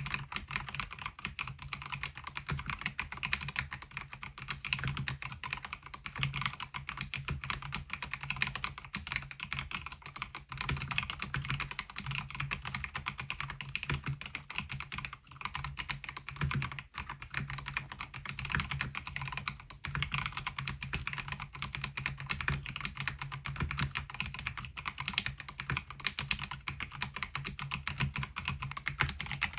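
Continuous fast typing on a MelGeek Mojo68 mechanical keyboard with MOA-profile keycaps: a dense, unbroken stream of key clicks with a low thock under them.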